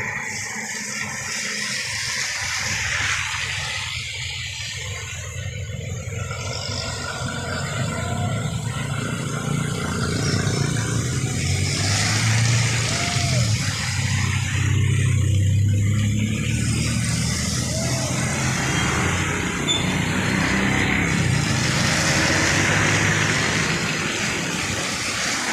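Road traffic on a wet road: cars and motorbikes passing, their tyres hissing through the water. The hiss rises and falls with each vehicle, and the engine sound is heaviest around the middle, as a car and a motorbike pass close by.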